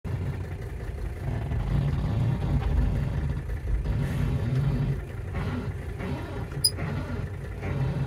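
Mercedes-Benz W123 steering idler arm groaning as the steering wheel is turned, over the running engine: a low, wavering groan that swells and fades. The owner suspects the idler arm bushings, machined slightly too small, pinching and binding.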